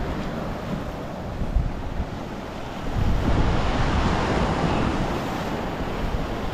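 Sea waves washing and breaking against a rocky shore, with wind buffeting the microphone as a low rumble; the surf swells louder about three seconds in.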